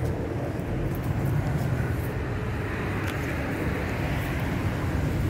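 Steady low rumble of outdoor background noise, with a few faint ticks.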